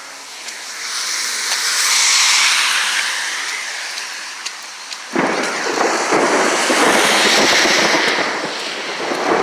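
A car passing on a wet road, its tyres hissing as it comes and goes. About five seconds in, a loud crackling rush starts suddenly and carries on.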